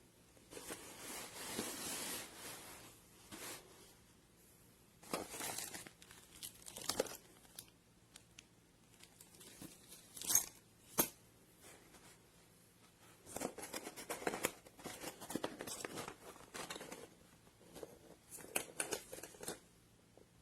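Thin plastic bottle being handled and crinkled in irregular bursts, with a few sharp clicks in the middle.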